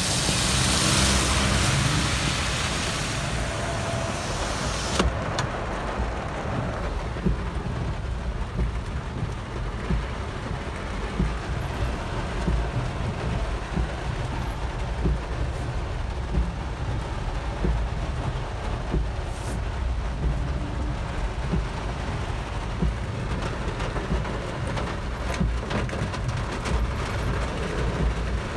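Road noise heard from inside a moving car on a wet road: a steady low rumble of engine and tyres with small scattered ticks. A loud hiss rides over it for the first five seconds and cuts off suddenly.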